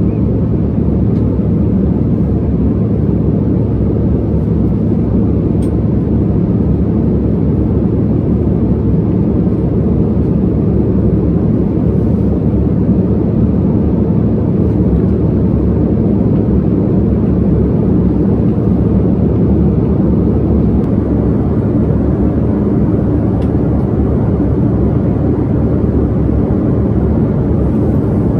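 Jet airliner cabin noise heard from a window seat in flight: the steady, low rumble of the engines and the air rushing past the fuselage.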